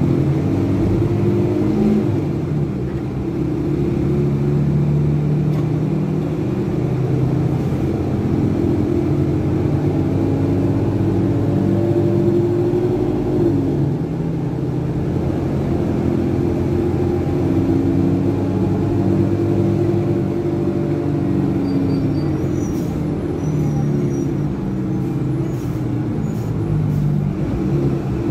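Cummins ISBe six-cylinder diesel of a rear-engined Materfer BU1115LE city bus pulling under way, heard from inside the passenger cabin; the engine note climbs and drops back a couple of times as the Allison six-speed automatic gearbox changes up.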